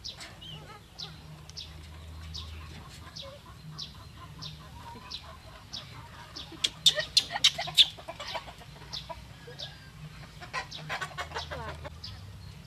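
Caged quails calling, with a short high chirp repeating about every half second. A cluster of loud, sharp clicks comes about halfway through, and a smaller one near the end.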